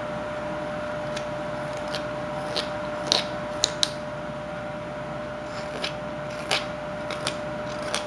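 Carving knife taking short slicing cuts off a small wooden bird blank held in the hand: irregularly spaced scraping strokes, a few of them sharp and crisp, with a faint steady hum behind.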